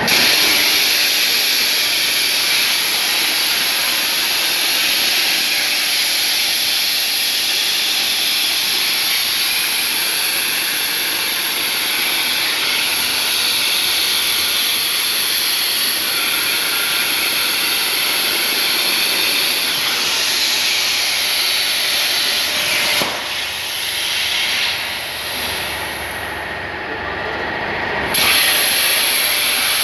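CNC plasma torch cutting 2 mm sheet steel: a loud, steady hiss from the arc and its air jet. Near the end it drops away for about five seconds, then comes back at full strength.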